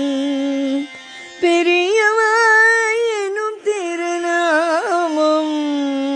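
Carnatic-style devotional singing: a single voice holds long, wavering notes without clear words. After a short break about a second in, the line climbs to higher held notes, then settles back down near the end.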